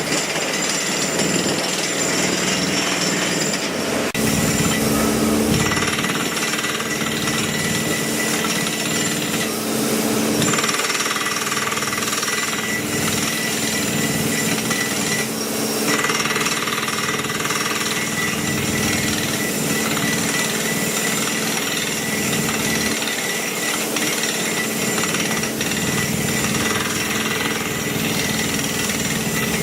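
Jackhammer hammering continuously at a steady level.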